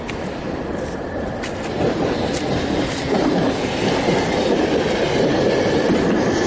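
Loud rumbling, rattling vehicle noise that swells about two seconds in and then holds steady.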